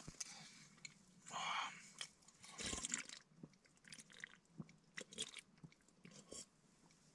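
A man eating and drinking close to the microphone: quiet sips, swallows and chewing. Two short breathy bursts come about one and a half and three seconds in, with scattered small clicks between them.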